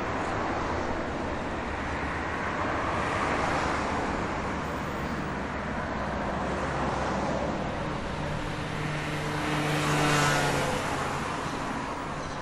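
City street traffic: a steady wash of passing cars, with one vehicle's engine growing louder, passing close and fading about ten seconds in.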